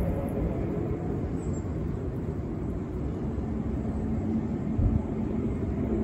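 A low, steady rumble from the sky under gusting wind on the microphone: the unexplained 'strange sounds' heard ahead of a storm, with no traffic about.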